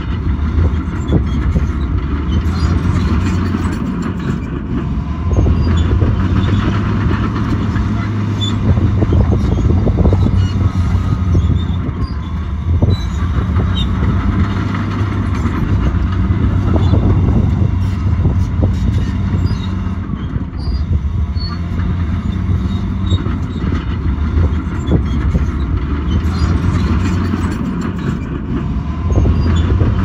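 Bulldozer's heavy diesel engine running under load, its note swelling and easing as it pushes, with scattered clicks and clatter.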